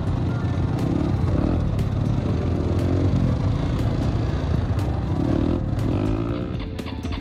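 Four-wheeler (ATV) engine running under way, heard from on board, with rattling and clatter as it rides over a rough dirt track.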